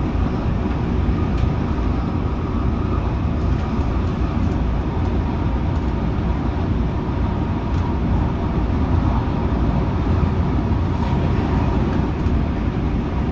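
MTR Tung Chung line CAF electric train running at steady speed, a constant low rumble with wheel and rail noise heard from inside the car.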